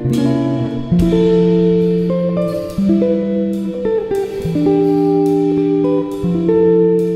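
Background music led by guitar, with plucked chords that change about once a second.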